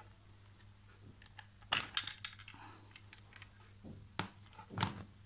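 Hard plastic clicks and rattles from a handheld infrared thermometer as its battery compartment cover is opened and the 9-volt battery snap lead is pulled out: a series of separate sharp clicks, the loudest about two seconds in and again near the end.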